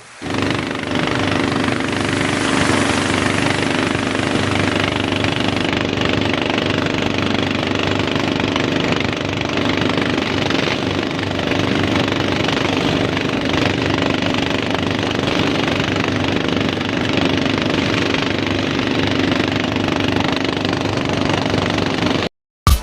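Fishing motorboat's engine running loud and steady under way, with a constant rushing noise over its drone.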